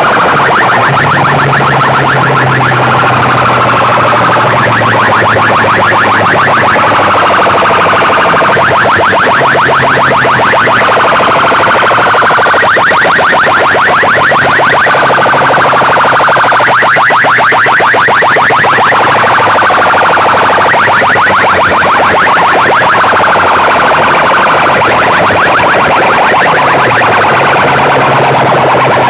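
Large PA loudspeaker systems at a sound-system competition, playing a loud, distorted, siren-like electronic tone with a rapid buzzing pulse and a low hum that comes and goes.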